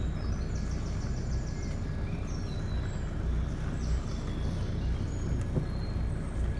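Motor cruiser's engine running steadily under way, a low drone, with short high bird chirps above it.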